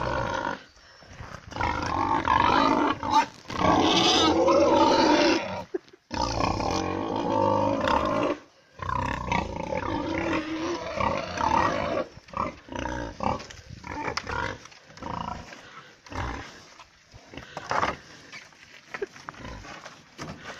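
Pigs squealing loudly and calling, begging for food at feeding time. Long squeals fill the first half, then give way to shorter, quieter calls.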